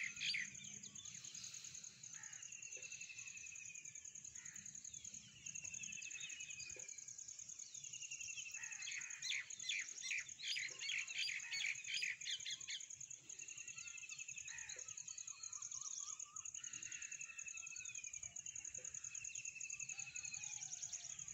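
Outdoor birdsong: quick chirps in clusters, loudest about halfway through, and a short, slightly falling call repeated every few seconds, over a steady high-pitched insect buzz.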